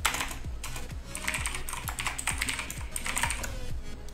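Typing on a computer keyboard: short runs of quick keystrokes with brief pauses between them, as login details are entered.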